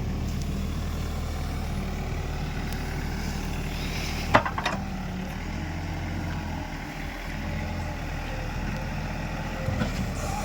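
A heavy diesel engine running steadily, with a single sharp clank about four seconds in followed by a few lighter knocks, and a couple more knocks near the end.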